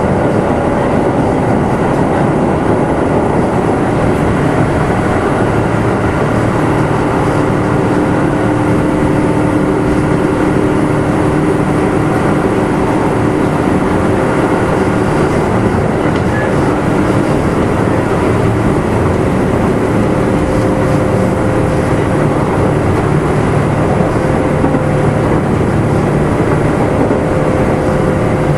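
Kintetsu 2610 series electric train running at a steady speed, heard inside motor car Mo 2669: a constant rumble of wheels and running gear with a steady motor and gear whine.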